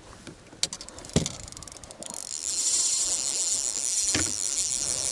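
Fishing reel buzzing steadily with a fast ratcheting whir from about two seconds in, as a hard-fighting bass is played on the line. Before it come a few light clicks and two sharp knocks, about a second in and about four seconds in.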